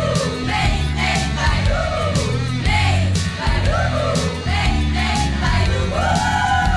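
Loud rock music for the dancers: a singing voice over a steady beat of drums and a heavy bass line.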